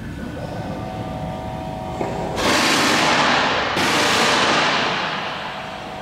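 A loud hiss starts suddenly about two and a half seconds in, surges again a second later, then fades away, over a steady low rumble.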